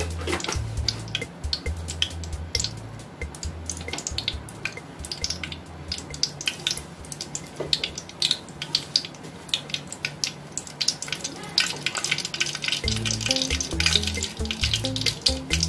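Mustard seeds popping and crackling in hot oil, sharp irregular pops that come thicker near the end, as a spice tempering is started. Background music with a low bass line plays under it at the start and again near the end.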